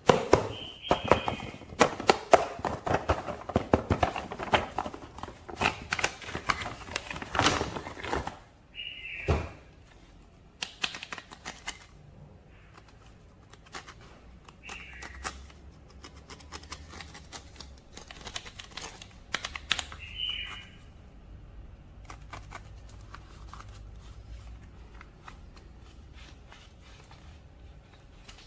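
Plastic toy packaging and figure parts being handled: a dense run of sharp clicks and rattles for about eight seconds, then scattered clicks and a few short high squeaks.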